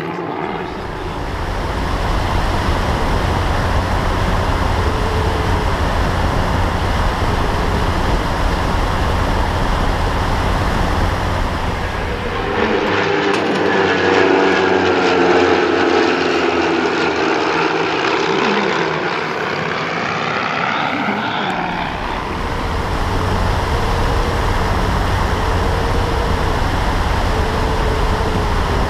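Propeller engines of several single-engine planes flying in formation, running steadily. From about 13 to 22 seconds in, the engine note swells and shifts in pitch as the planes pass overhead.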